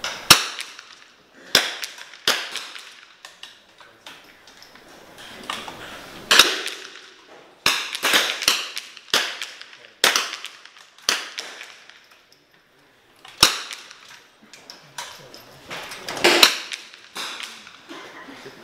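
.22 rimfire benchrest rifle shots: more than a dozen sharp cracks at irregular intervals, some close together and some a few seconds apart, varying in loudness, with a short lull about two-thirds of the way through.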